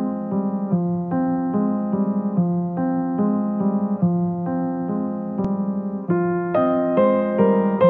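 Background music on a keyboard, playing a repeating pattern of chords that change a little under once a second, moving into a higher register about six seconds in.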